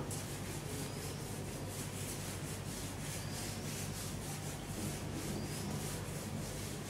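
A duster wiping a whiteboard, rubbing back and forth in quick, even strokes that give a steady scrubbing hiss. A low steady hum runs underneath.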